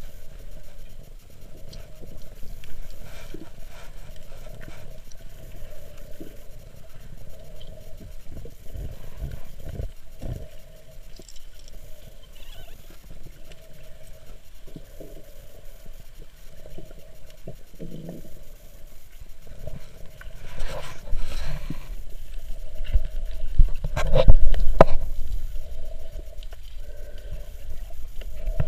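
Muffled underwater sound recorded by a camera held underwater: water movement and soft, scattered knocks from handling. It gets louder and busier about 21 and 24 seconds in.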